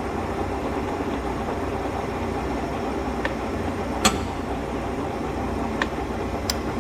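Mori Seiki engine lathe running under power with its geared headstock and feed drive engaged, a steady mechanical hum. Four sharp clicks from the machine's gearing and controls, the loudest about four seconds in.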